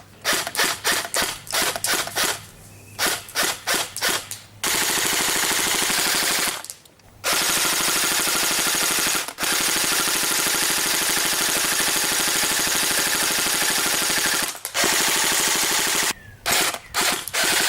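Airsoft Thompson 1928-style gun firing at soda cans: a quick string of single shots for the first four seconds or so, then long full-auto bursts lasting several seconds each, broken by brief pauses, with a few short bursts near the end.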